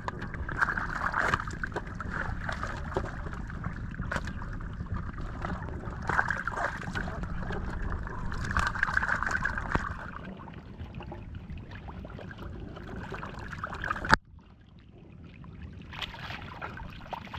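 Shallow muddy water splashing and sloshing as catfish thrash in it and hands grab at them, busiest in the first part. Near the end one sharp click, after which it is briefly quieter.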